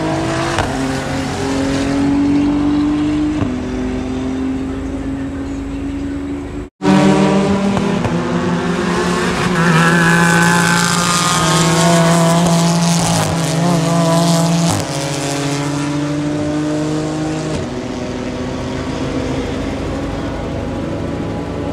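Racing car engines running on the circuit, a sustained engine note throughout. About ten seconds in the engine pitch climbs, and it falls away a few seconds later. The sound drops out for an instant about seven seconds in.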